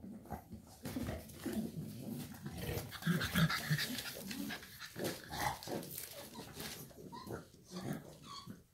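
Shar pei puppies moving about on puppy pads: irregular scuffling of paws on the pads with dog panting and snuffling, and a few short low grunts just after three seconds in.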